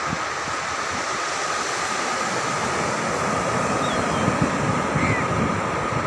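Ocean surf washing onto the beach, a steady rushing noise, with wind buffeting the microphone.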